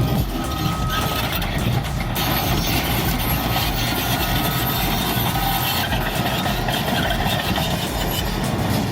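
Heavy diesel engine of earthmoving or trenching machinery running steadily under load, with grinding and working noise.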